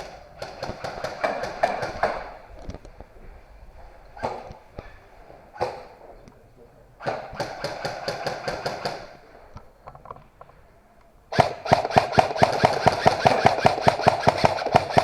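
Airsoft guns firing on full auto in rapid strings of shots: three bursts, with a couple of single shots between them, the longest and loudest near the end lasting about four seconds.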